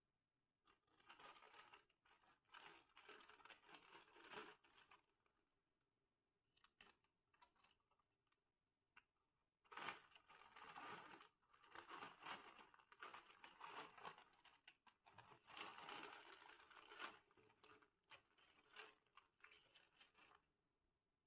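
Faint crinkling and tearing of a plastic snack packet being handled and opened, in irregular bursts with a pause of a few seconds in the middle.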